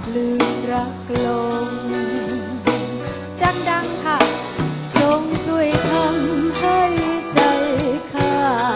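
A woman singing a slow song live into a microphone with a band behind her, her held notes wavering with vibrato over bass and regular drum hits.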